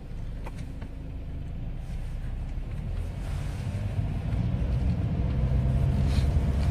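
Steady low rumble that grows slightly louder toward the end, with a few faint clicks.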